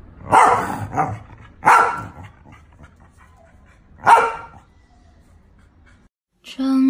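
A corgi barks three times, single loud barks with gaps of one to two seconds between them. Music starts just before the end.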